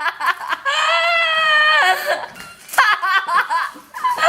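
High-pitched laughter, with one long drawn-out note near the start followed by shorter bursts.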